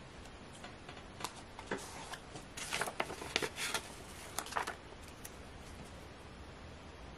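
Paper rustling and crinkling as a glossy sticker sheet is bent, handled and laid down on a planner page, with a few light taps before it. The rustling is loudest in a cluster around the middle.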